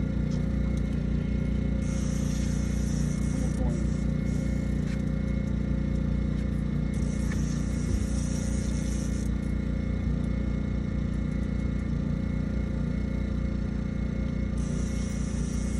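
Suzuki 200 outboard motor idling steadily, a continuous low hum. A higher hiss comes and goes three times over it.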